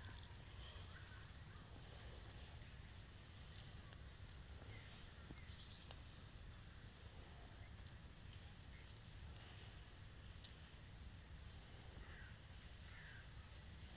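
Near silence: quiet woodland ambience with a faint low rumble, and scattered short, high chirps from small birds.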